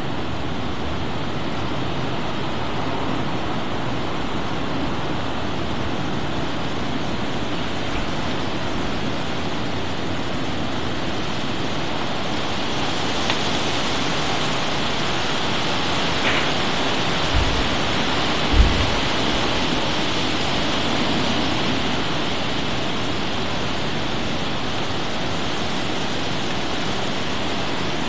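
Heavy thunderstorm rain falling steadily, a constant rushing hiss that grows brighter about halfway through. A few brief low thumps come in the middle.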